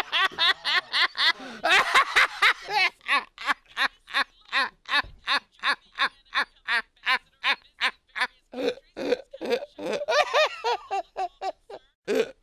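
A person laughing in a long unbroken run of short "ha" pulses, about four a second.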